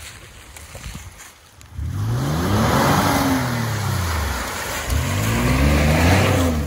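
2022 Chevrolet Colorado pickup powering through muddy ruts: the engine revs hard twice, each rev rising then falling in pitch. The tyres churn and throw mud with a loud rushing noise. It starts abruptly about two seconds in.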